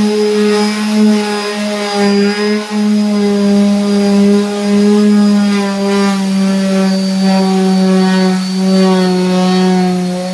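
Electric detail sander with a dust bag running continuously against pine tongue-and-groove ceiling boards: a steady buzzing motor hum whose pitch wavers slightly.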